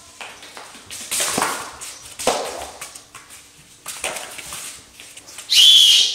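A training whistle blown once, a steady high-pitched blast about half a second long near the end. It is the whistle cue for a dog's recall into the between-the-legs position.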